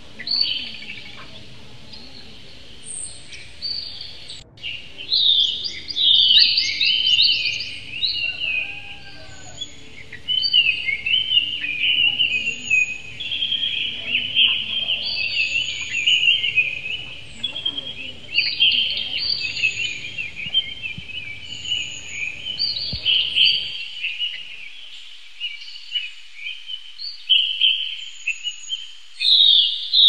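Caged lovebirds chattering: a continuous stream of rapid, shrill chirps and squeaks, coming in louder flurries every second or two. A faint low background rumble cuts off about three-quarters of the way through.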